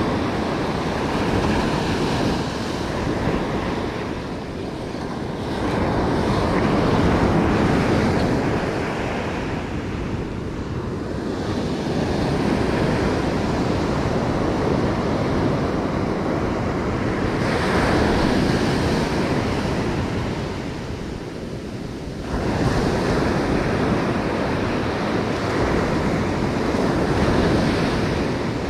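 Ocean surf breaking on a sandy beach: waves roll in and wash up the shore in a continuous rush that swells and eases every few seconds.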